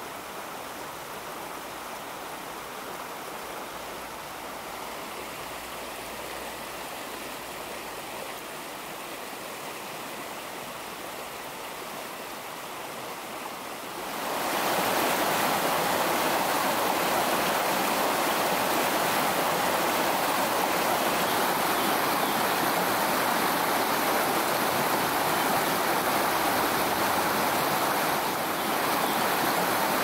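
A small mountain stream rushing over rocks through riffles and little cascades, a steady rush of water that steps up louder about halfway through.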